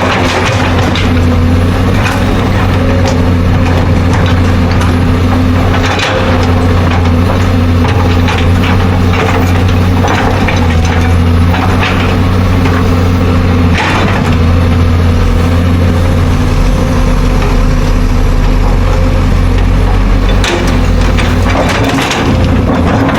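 Excavator's diesel engine running steadily, with occasional sharp knocks and crunching, like rock being dug and the bucket striking.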